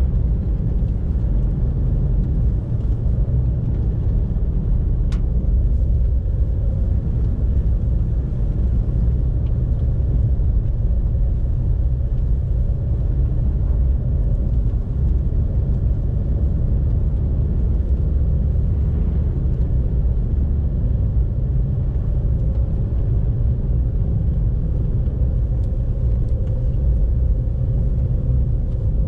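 Car driving on the road: a steady low rumble of engine and tyre noise, with a single sharp click about five seconds in.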